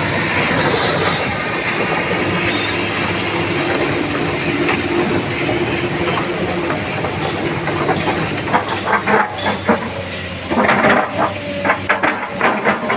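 Komatsu PC200 hydraulic excavator working: steady diesel engine and hydraulic noise with a hiss, then, about two-thirds of the way in, a run of sharp metallic squeals and clanks.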